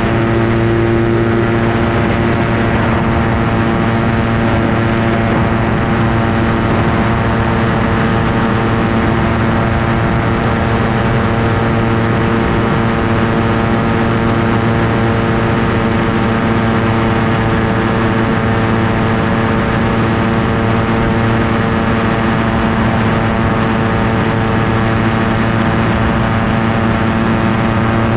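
Ultralight aircraft engine and propeller running at steady cruise power in flight: a loud, continuous drone that holds one pitch throughout.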